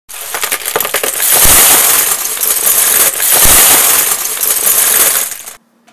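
Loud, dense clattering and clinking of many small hard pieces tumbling together, with two heavier thumps about one and a half and three and a half seconds in; it cuts off abruptly just before the end.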